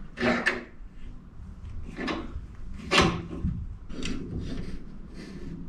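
Metal G-clamps being set on a steel-topped bench and workpiece: a handful of separate metal clunks and scrapes, the loudest about three seconds in.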